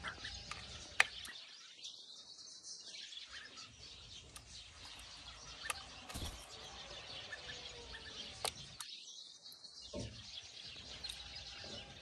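Faint chirping of small birds, with a few light clicks.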